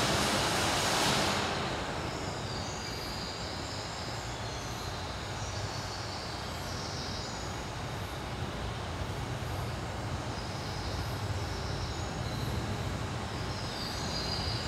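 A steady low rumble with a faint hiss, after a louder rushing noise dies away about a second and a half in.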